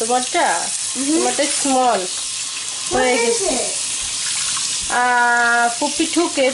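Kitchen faucet running, its stream splashing onto a glass pot lid and into a stainless steel sink as the lid is rinsed. A voice comes and goes over the water, with gliding pitch and one held note about five seconds in.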